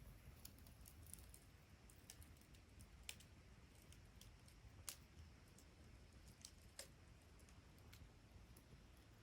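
Wood fire crackling faintly, with scattered sharp pops every second or two.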